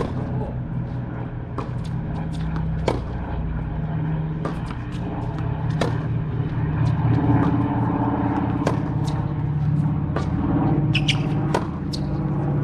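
Tennis ball struck by rackets and bouncing on a hard court during a backhand rally: sharp pops every second or so, over a steady low rumble.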